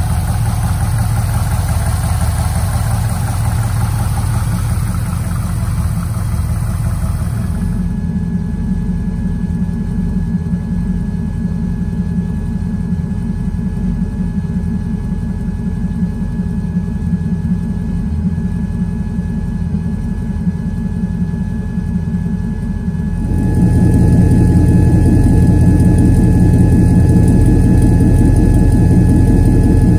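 Custom 1998 Camaro Z28's upgraded V8 idling steadily with a low rumble. It is heard at the engine bay at first, deeper and with less hiss from behind the car from about a quarter of the way in, and louder and deeper right at the tailpipe for the last quarter.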